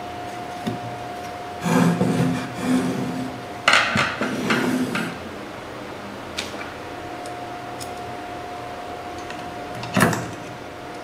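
Clattering and knocking of hard parts and tools being handled during assembly of an IPL power supply, in two bursts a few seconds in and one sharp knock near the end, over a steady faint hum.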